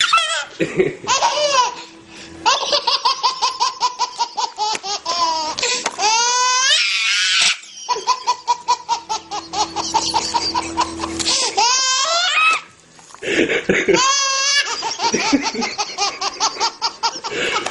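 A baby laughing hard: long runs of quick, high-pitched belly-laugh pulses with squealing rises, broken by a few short pauses for breath.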